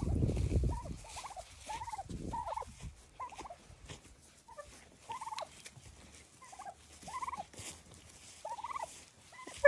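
Domestic white turkeys calling as they follow along: a string of short calls, each rising then falling in pitch, about one a second. A loud rustling fills the first second.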